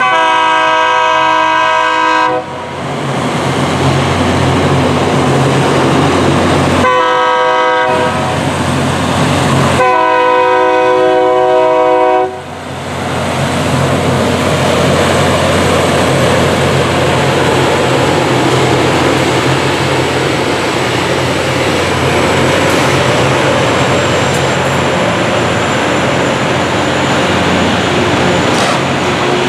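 Locomotive horn on a Loram rail grinder train sounding three blasts, long, short, long, over the steady rumble of the train. After the horn, a loud steady noisy rush of the train running along the track continues.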